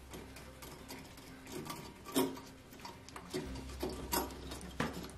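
Irregular small clicks and knocks of a plastic mounting plug being screwed in by hand against a porcelain toilet bowl, part of a toilet lift's fitting; the sharpest knocks come about two seconds in and twice around four to five seconds.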